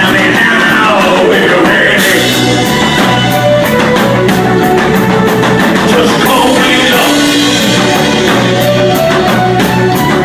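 Live band playing loud rock music, with singing over guitar and drums.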